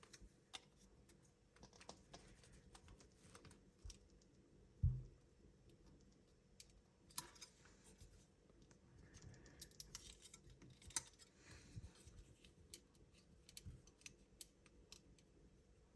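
Faint clicks and taps of plastic snap-fit model parts being handled as an airliner wing is pushed onto the fuselage, with one dull thump about five seconds in.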